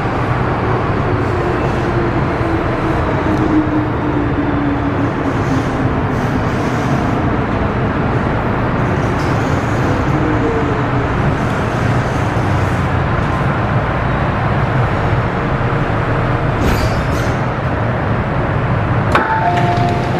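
MTR M-train heard from inside the carriage, running through the tunnel and slowing into a station: a steady rumble and rail noise, with a motor whine falling in pitch as it brakes. Near the end there is a click, then a two-tone electronic chime.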